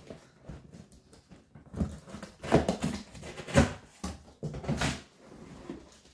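Cardboard box flaps being pulled open and handled, a series of separate scrapes and rubs of cardboard on cardboard, the loudest a little past the middle.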